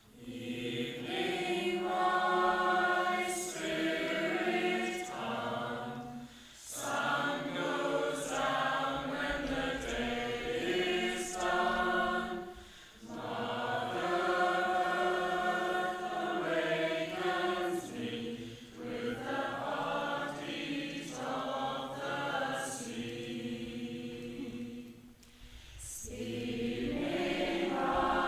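Women's choir singing a cappella in several parts, in phrases broken by short breathing pauses.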